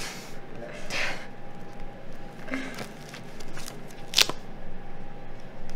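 Quiet room tone with a faint steady hum, a few soft rustling noises and short clicks, the loudest a sharp click about four seconds in.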